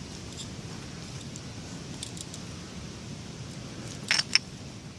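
A glass canning jar being handled, with low rustling throughout and a quick pair of sharp clinks about four seconds in.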